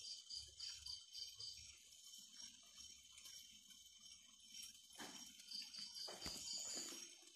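Night insects, crickets by the sound, chirping in quick pulsed bouts over a steady high-pitched insect drone, with a few faint knocks in the later part.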